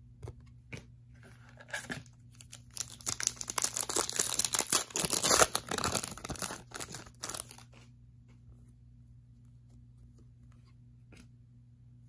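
A Donruss Optic basketball card pack's wrapper being torn open and crinkled: several seconds of ripping and rustling that build, peak and stop. A few light clicks of cards being handled come before and after.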